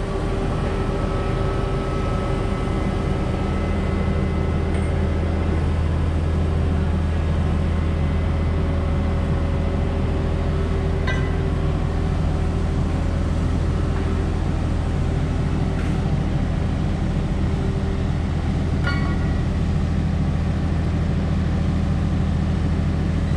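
Hydraulic pile-pressing machine running with a steady low hum while it presses a spun concrete pile into the ground, with a few faint clicks.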